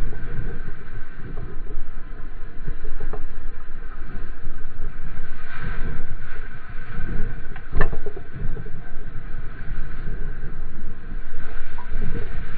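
Wind buffeting and water rushing and splashing against a camera mounted on the nose of a surfboard as it rides a breaking wave, with a sharp hit about eight seconds in.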